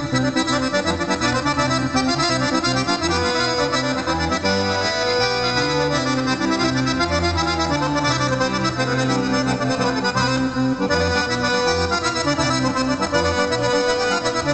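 Accordion playing a traditional Sardinian ballu dance tune, continuous and unbroken.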